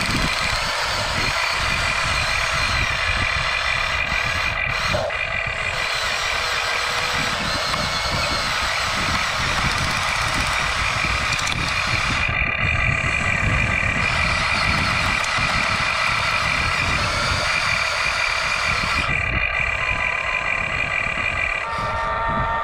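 Radio-controlled toy construction trucks running: a steady mechanical whirr with a high whine that breaks off and resumes several times.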